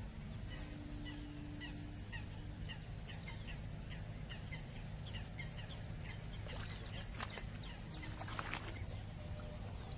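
Birds calling with many short, repeated chirps over a steady low wind rumble, with a few brief scratchy rustles about seven to nine seconds in.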